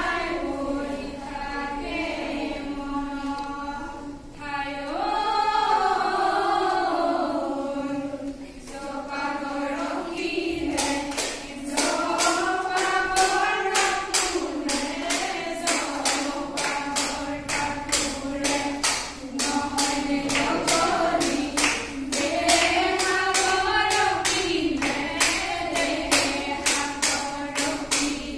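Group of women singing a Jeng Bihu song together. About eleven seconds in, a steady clapped beat joins, about two and a half strikes a second.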